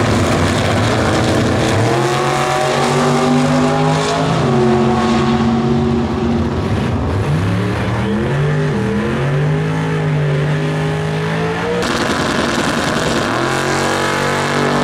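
Two drag-racing cars, one a 1957 Chevrolet, launching and running down the strip, their engines climbing in pitch and dropping back at each gear change. After about twelve seconds the sound changes to a single car's engine running steadily.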